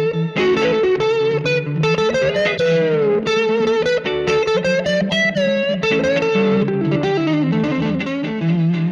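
Electric guitar, a Stratocaster with '62-style pickups through a Vox AC10 amp and overdrive pedal, playing quick blues lead lines with string bends over a looped rhythm part.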